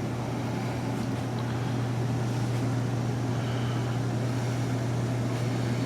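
A boat's air conditioning running: a steady low hum under an even airy hiss.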